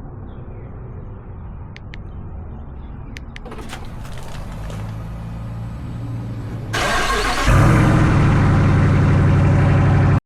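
A car engine running, growing slowly louder, then much louder and deeper from about seven seconds in, settling into a loud, steady exhaust drone.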